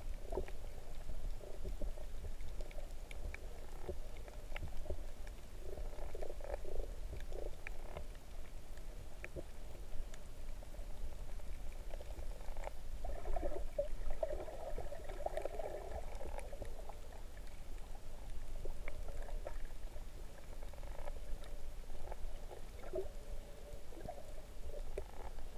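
Muffled underwater sound picked up through a submerged camera's housing: a steady low rumble of moving water with uneven gurgling swells and faint clicks, and a warbling pitched sound about halfway through.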